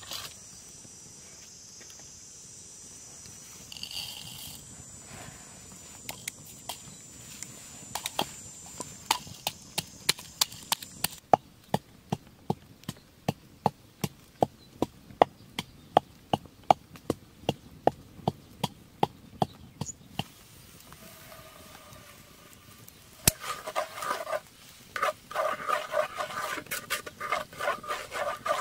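Food being chopped or pounded by hand: a steady run of sharp knocks, about three a second, that stops after several seconds. In the last few seconds a repeated, pitched sound with several tones comes in.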